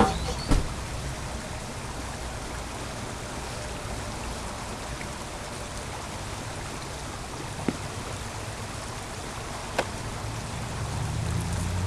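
Creek water running steadily, with a few faint clicks and a low traffic rumble building near the end.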